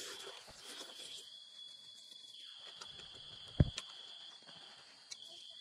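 Steady high-pitched chirring of insects in the background, with a few faint clicks and one sharp thump about three and a half seconds in.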